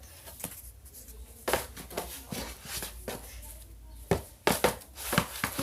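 Handling noises from plastic bottles and containers being packed away into a storage box: a few scattered knocks and clicks, with a cluster of them near the end.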